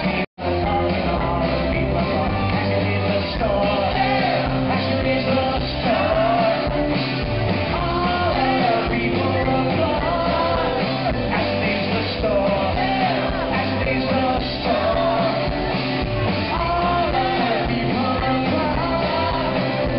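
Live rock band playing electric guitar and keyboards while a man sings lead, recorded from among the audience. The sound drops out for a split second right at the start.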